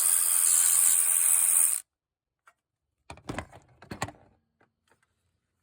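Ratchet and socket working out a 10 mm bolt on the engine bar: a loud continuous run of clicking that stops suddenly just under two seconds in, followed about a second later by a few clicks and knocks of the tool and bolt being handled.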